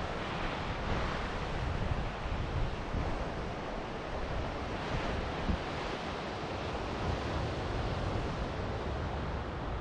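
Ocean surf washing onto the beach in gentle swells, with wind buffeting the microphone.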